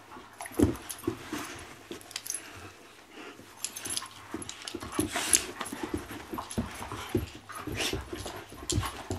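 Two dogs play-wrestling: irregular breathy huffs and mouthing noises with scuffles and bumps of bodies on the carpet, sharper knocks near the start and about five seconds in.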